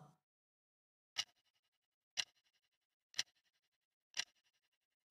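Countdown timer sound effect: a short clock-like tick once a second, four ticks in all, with near silence between them, marking the seconds left to answer a quiz question.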